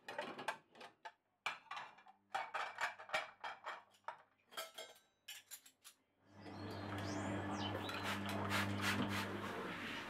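White ceramic plates clinking and clattering against each other as a stack is handled, in a quick run of sharp knocks. About six seconds in, a steady noisy hum takes over.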